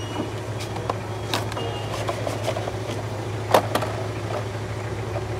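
A steady low hum with a few sharp clicks and light rattles as a set of spark plug wires is handled. The loudest click is about three and a half seconds in.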